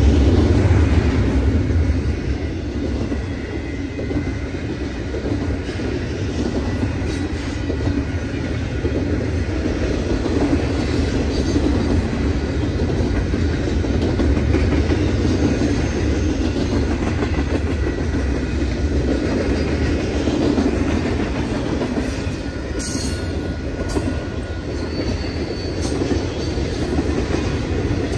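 Double-stack intermodal freight train's container well cars rolling past: a steady rumble of steel wheels on the rails.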